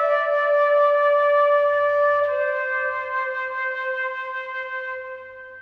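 Silver concert flute playing a held note with vibrato, then stepping down to a lower closing note about two seconds in, which is held and fades away near the end.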